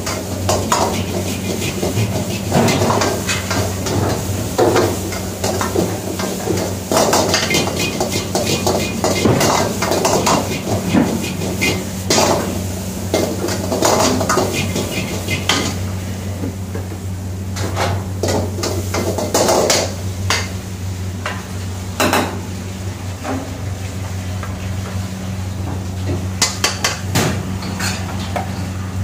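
Steel ladle clanking and scraping against a wok during stir-frying, with food sizzling, over a steady low hum. The clatter is busiest in the first two-thirds and thins out later. Near the end a few quick clinks come from the ladle in a steel condiment pan.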